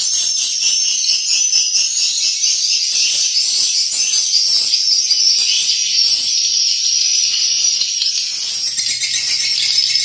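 Swiftlet calls: a continuous, dense, high-pitched twittering chirp with rapid, even pulsing, filling the swiftlet house.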